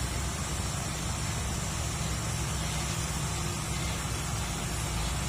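Heavy truck's diesel engine running steadily at a low, even pitch, with no horn sounding.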